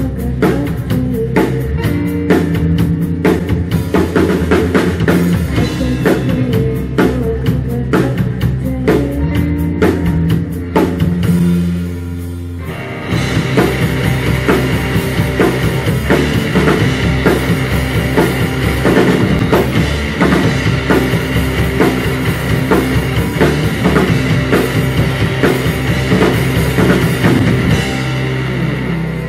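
Live rock band playing an instrumental passage on electric guitars and drum kit. About 12 seconds in the drums stop briefly under a held low note, then the band comes back in with a fuller, brighter sound heavy with cymbals.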